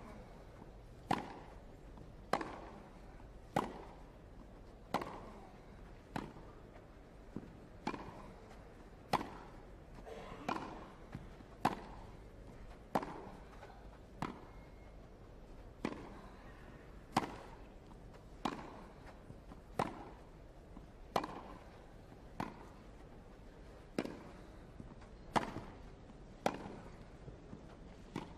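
Tennis ball struck back and forth with rackets in a long baseline rally: a sharp pock about every 1.2 seconds, over twenty shots in a row.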